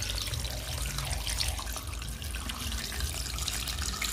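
Water pouring steadily from a plastic jug into an aluminium pressure cooker onto beans, meat and vegetables, filling it to just above the level of the beans for cooking.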